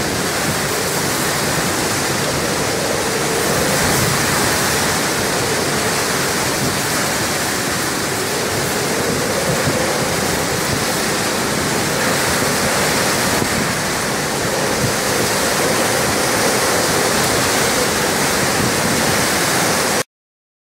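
Storm-force wind and driving rain: a loud, steady rush of noise that swells slightly now and then and cuts off suddenly near the end.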